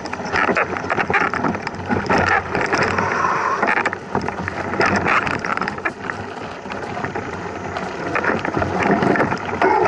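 Mountain bike riding over a rough dirt trail: steady tyre noise with frequent clicks and knocks as the bike rattles over bumps.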